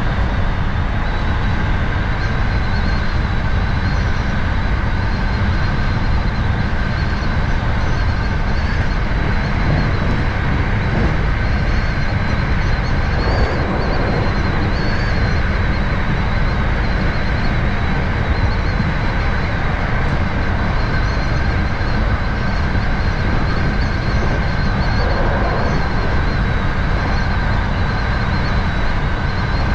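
Hankyu 7000 series electric train running between stations, heard from inside the front car: a steady rumble of wheels on rail with a faint constant high whine.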